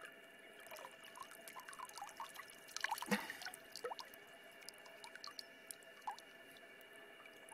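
Water dripping and trickling off a large mirror carp and the angler's arms into the reservoir as the fish is held just above the surface: scattered small plinks and drips, busiest about three seconds in.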